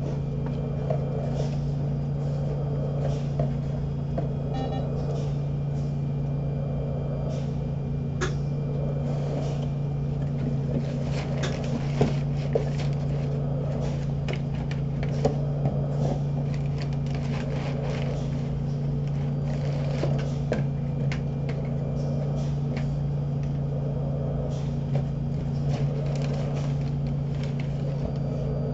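Cardboard box and brown paper packing being handled and rummaged through, with scattered sharp crinkles and taps, over a steady low machine hum.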